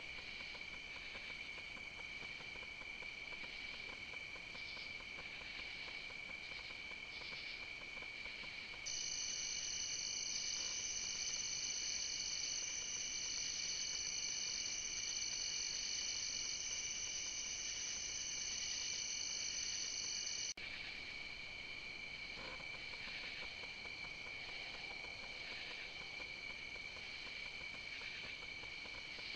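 Night insect chorus: many insects singing at once as a steady, shrill, continuous trilling at a few high pitches. From about nine seconds in to about twenty seconds a louder, higher-pitched chorus takes over, then the first one returns abruptly.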